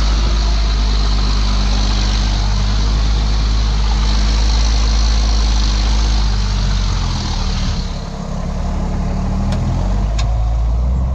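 Ford TW tractor's six-cylinder diesel engine running under load while ploughing, with a steady, loud note. About seven to eight seconds in the note drops and the engine eases off. Two faint clicks come near the end.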